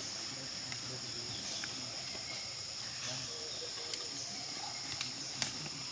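Steady, high-pitched drone of an insect chorus, with a few sharp clicks about four and five and a half seconds in.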